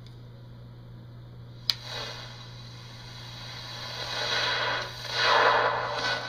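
Radio static from a spirit box sweeping, swelling in noisy bursts from about four seconds in, over a steady low hum. A single sharp click comes a little under two seconds in.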